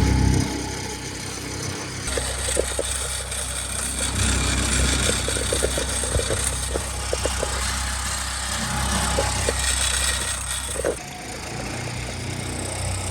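Small 5-horsepower outboard motor running steadily as it pushes the boat along, with a louder rushing hiss from about two seconds in until near the end and a few light knocks.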